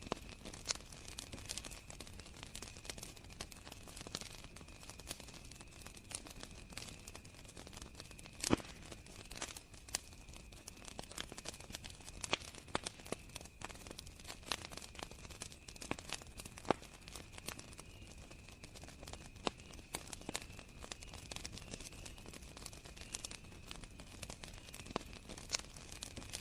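Wood fire crackling with irregular sharp pops, a couple of them louder than the rest. Under it runs the steady, unbroken high trill of crickets.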